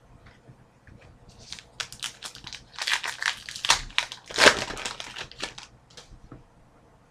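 A trading-card pack wrapper crinkling as it is handled and opened, in a run of crackles that peaks in the middle and dies away.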